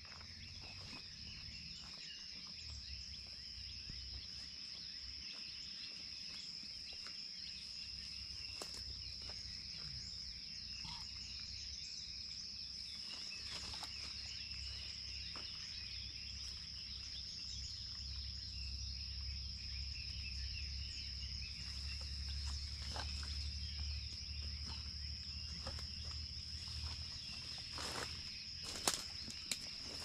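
Quiet roadside ambience: a steady high-pitched insect drone throughout, over a low rumble that swells through the middle and eases off again. A couple of sharp clicks come near the end.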